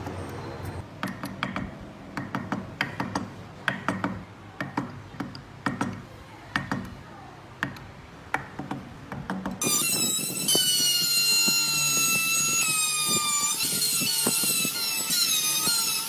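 Hand chisel cutting and scraping into wood, a string of small sharp clicks and taps. About ten seconds in, an electric rotary tool starts and runs with a steady high whine, its pitch wavering slightly as it works the wood.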